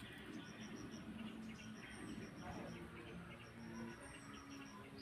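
Quiet tropical rural ambience: an insect chirping in short runs of rapid high pulses, repeating throughout, with a thin high bird note twice.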